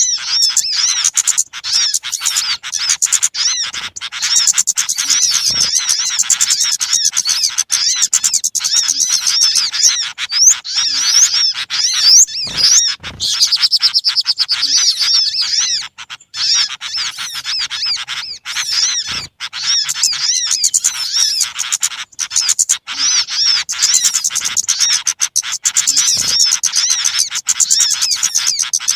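Dense, noisy chatter of many small birds: rapid, overlapping high chirps and trills with hardly a break. It is a bird-lure call recording meant to draw small birds in.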